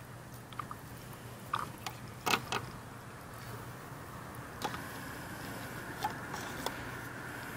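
A few faint clicks and knocks of hands working in a car's engine bay, squeezing the coolant hoses and handling the filler funnel, over a faint steady hum.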